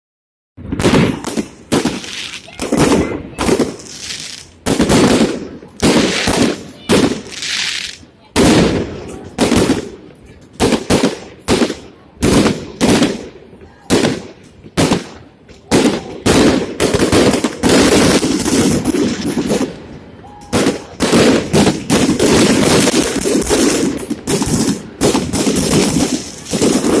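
Fireworks salute: aerial shells bursting in quick succession, sharp bangs about one or two a second, some fast doubles, with crowd voices in between.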